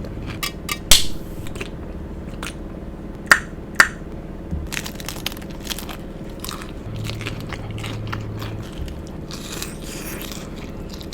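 Close-miked biting and chewing of a low-carb taco, with sharp crunches scattered throughout; the loudest comes about a second in and two more follow near three and a half seconds. A steady low hum runs underneath.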